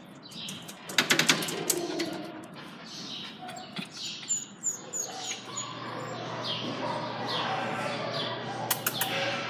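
Small birds chirping repeatedly in short falling notes, with a quick run of sharp clicks about a second in and two more near the end.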